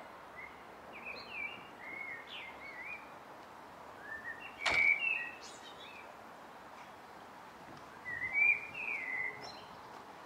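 Garden birds singing in short warbling phrases over steady outdoor background noise, with a single sharp click about five seconds in.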